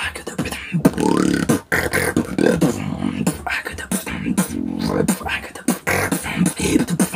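Solo beatboxing: rapid mouth-made drum hits in a tight rhythm over low vocal bass tones that slide up and down in pitch.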